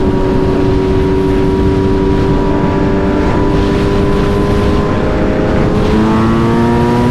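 Sport motorcycle engine pulling at highway speed, its pitch slowly climbing. Near the end the note drops with a gear change, then climbs again, over a steady rush of wind noise.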